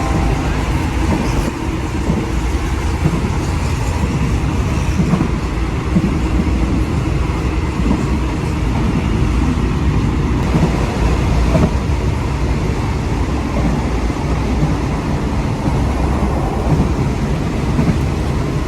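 Passenger train running, a steady loud low rumble with no breaks.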